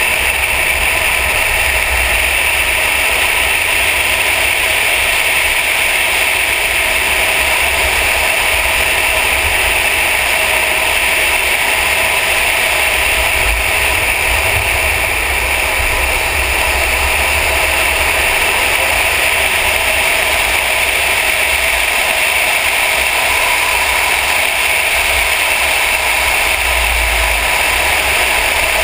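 Steady rush of wind and road noise from a camera on the bonnet of a Mercedes driven at speed, with a low buffeting rumble on the microphone. No rise or fall of engine revs stands out.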